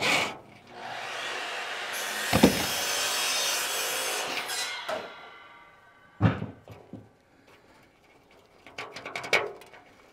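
Hand tools working rusted bolts loose on a steel trailer fender: about four seconds of scraping, then a few separate metal knocks and light clinks.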